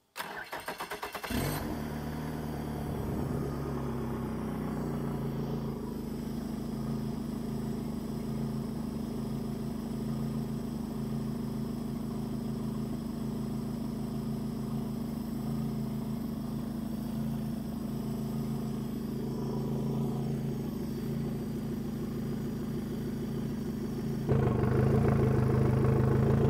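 Yamaha F150 four-stroke outboard cranking for about a second, catching, then idling steadily on the hose and flush muffs during a test run to check its water pump. About 24 seconds in it grows markedly louder.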